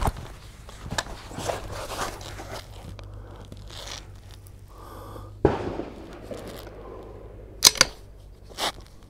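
A shooter getting into prone position behind a bipod-mounted rifle: rustling and scuffing on the shooting mat with scattered clicks of gear being handled. The loudest sound is a sharp double click about three-quarters of the way through.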